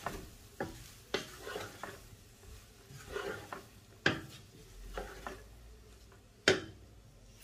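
Large wooden spoon stirring and turning rice and vegetables in a black wok. It makes irregular scrapes and knocks against the pan, the sharpest about six and a half seconds in.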